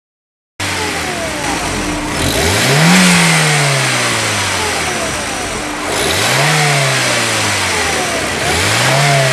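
Turbocharged Honda S2000 engine idling and blipped three times, each rev rising quickly and falling back, the first the loudest. A hiss of air from the Synchronic blow-off valve comes in with the revs and carries on between them.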